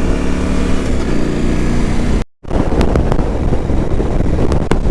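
2023 KTM 890 Adventure R's parallel-twin engine running steadily under way. About two seconds in the sound drops out for a moment, then comes back rougher, with wind rumble and a few sharp ticks.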